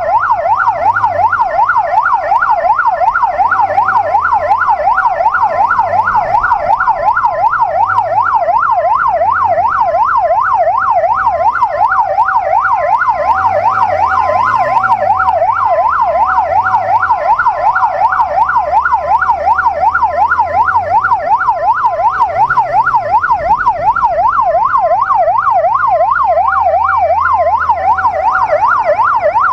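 Electronic police siren on a fast yelp, sweeping up and down about three times a second without a break, with a second two-note hi-lo tone alternating under it. Below it, the inline-four engine of the Benelli QJ BJ600 police motorcycle rises and falls with the throttle.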